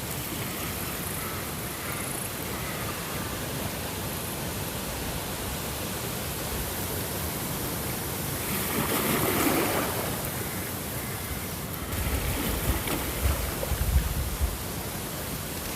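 Steady rushing water, like surf or a stream, swelling for a couple of seconds about nine seconds in, with a few low, louder thumps in the last few seconds.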